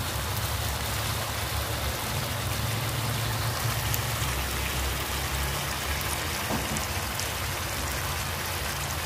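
Tofu and tempeh bacem sizzling and bubbling steadily in a wok as the kecap manis (sweet soy) sauce cooks down to a glaze. A steady low rumble runs underneath.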